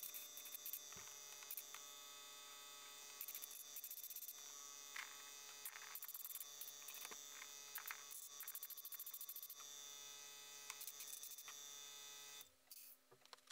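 Small airbrush compressor running with a faint steady hum, with short bursts of hiss from the airbrush spraying a coat of paint. The hum stops near the end.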